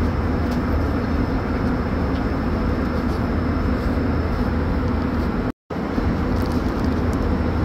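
Steady cabin noise of an Airbus A380 in flight after take-off: a constant rush of engine and airflow noise with a low hum. It drops out for an instant about five and a half seconds in.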